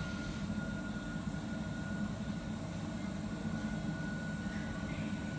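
Steady low hum of kitchen machinery, with a thin steady whine above it.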